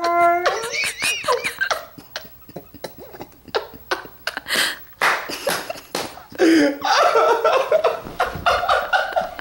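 A dog vocalizing as if answering back: a held whine that bends up and down in the first second, scattered knocks and scuffles in the middle, then a longer wavering, grumbling yowl near the end.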